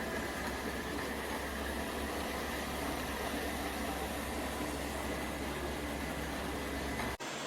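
Lefant M210 Pro robot vacuum cleaner running: a steady whir with a faint high whine and a low hum. The sound drops out for an instant about seven seconds in and comes back with less hum.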